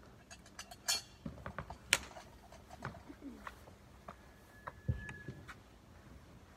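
Irregular clicks and knocks as a holy water sprinkler is lifted from its bucket and shaken in blessing, the sharpest about one and two seconds in and a heavier thump about five seconds in.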